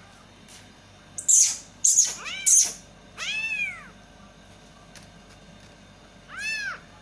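Kittens mewing: three high-pitched mews that rise and fall, the second the longest. Three short, loud, harsh noisy bursts come about a second in, just before and overlapping the first mew.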